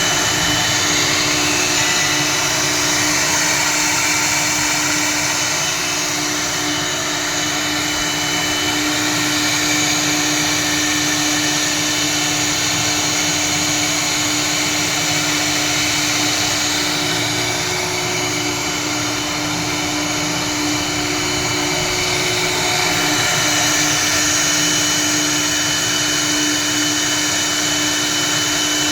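Woodstar 1325 CNC router with a vacuum bed running: a steady machine hum and hiss with one constant mid-pitched tone.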